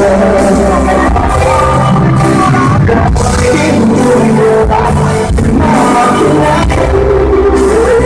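Live pop ballad: a male vocalist sings over a full backing band. It is loud, and recorded on a phone, so the sound is slightly distorted.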